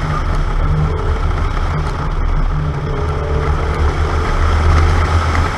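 Car driving on a circuit, heard from a microphone outside the car: engine and road noise under heavy wind buffeting, with a faint engine note that rises and falls.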